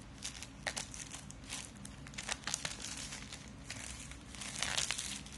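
Clear plastic shrink-wrap being pulled off a phone box, crinkling and crackling in a run of short bursts that is loudest near the end.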